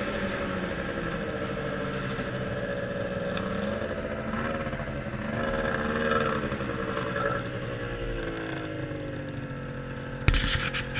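2001 Yamaha SRX 700 snowmobile's three-cylinder two-stroke engine running under way, its pitch rising and falling with the throttle and easing down toward the end. A couple of sharp knocks come near the end.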